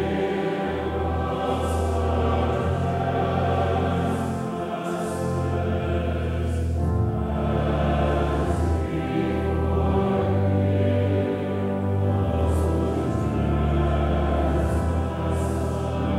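Congregation singing a hymn, a sung prayer, together in slow held phrases over sustained low notes.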